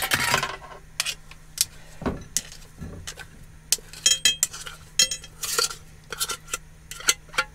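A utensil tapping, scraping and clinking against a dish as canned tuna is crumbled up, in irregular strokes with a couple of ringing clinks about four seconds in.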